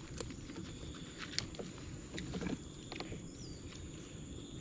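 Outdoor ambience: a steady high insect drone over a low rumbling haze, with scattered light clicks.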